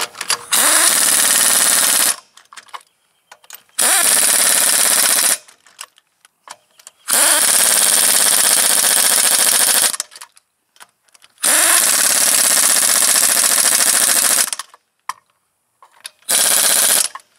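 Pneumatic impact wrench hammering lug nuts tight on a truck wheel. It comes in five separate bursts of about one to three seconds, each spinning up briefly before the rapid hammering, with short pauses between them.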